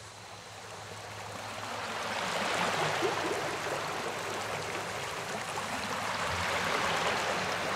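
A steady rushing noise like running water, growing gradually louder over the first few seconds and then holding, over faint low sustained tones.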